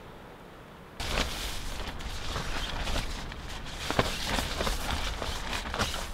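Tent cot fabric rustling and crinkling as the door is handled and opened, a dense run of sharp crackles that starts abruptly about a second in.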